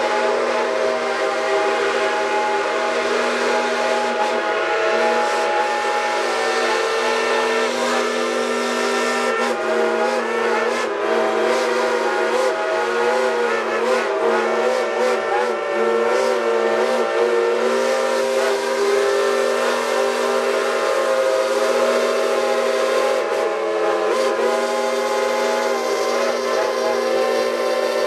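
Steam whistles of five geared steam locomotives, Shays and a Climax, blowing together as one continuous chord of several pitches, some of them wavering in the middle.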